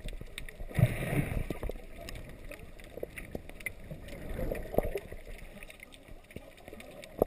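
Muffled underwater water noise picked up by a camera under the surface: sloshing and bubbling with scattered small clicks, a louder surge about a second in and another shortly before the five-second mark.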